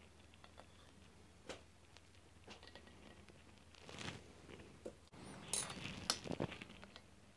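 Steel scriber scratching faintly across a layout-blued aluminium bar, then a few sharp clicks and taps from about five and a half seconds in as a steel rule and tools are set down on the granite surface plate.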